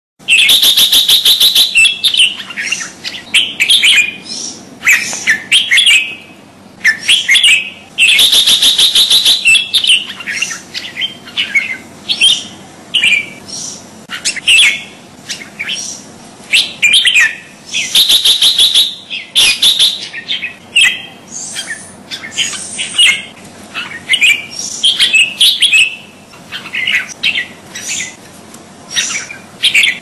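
Sooty-headed bulbul (kutilang) singing loudly in a steady stream of short whistled phrases. The phrases are broken three times by a rapid, harsh chattering burst about a second and a half long.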